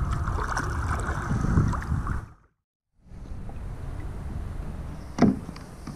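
Water sloshing around a kayak as it is paddled along a shallow spring-fed river. The sound breaks off to silence for about half a second. A quieter steady water hiss follows, with one sharp knock or splash near the end.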